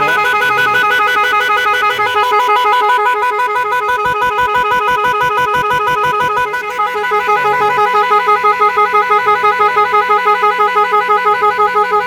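12-sound electronic car horn sounding continuously, a warbling multi-tone note with a fast pulse. About six and a half seconds in it switches to another tone pattern that throbs about three times a second.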